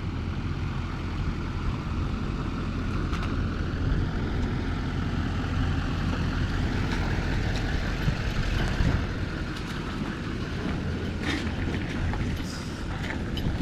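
Truck driving along: a steady low engine and road rumble.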